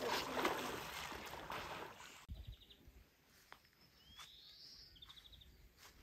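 Splashing of a swimmer's front-crawl strokes through lake water, cut off abruptly about two seconds in. Then quiet outdoor air with a few bird calls: two short rapid trills and a rising whistle.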